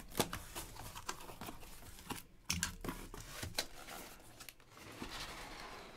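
Cardboard case being opened by hand: packing tape tearing and cardboard scraping and rustling, with scattered knocks as the case is handled and tipped.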